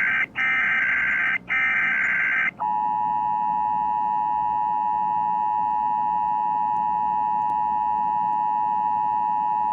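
Emergency Alert System SAME header data bursts, three in a row with only split-second gaps between them, then, about two and a half seconds in, the steady two-tone EAS attention signal (853 and 960 Hz). The playback is a recorded alert on a Victor Reader Trek. The near-missing gaps between the header bursts are the player's glitch: it skips the silent stretches in the recording.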